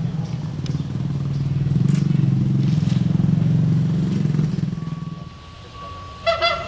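A motor vehicle's engine running close by, loud and pulsing, then fading away about five seconds in. Near the end a short horn blast sounds.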